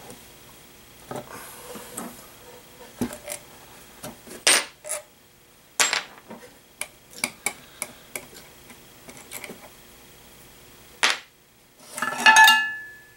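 Scattered clicks and knocks of a Servo 140 power feed's metal housing and small parts being handled as its spring-loaded cover is worked loose, with a louder ringing metallic clink near the end.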